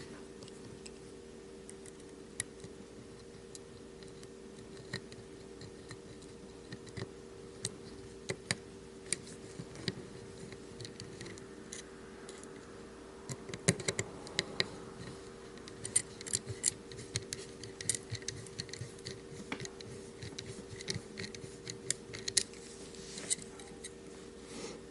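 Scattered small clicks and taps of a folding knife's parts and a small Torx driver being handled during reassembly, sparse at first and coming thick and fast from about halfway through, over a steady low hum.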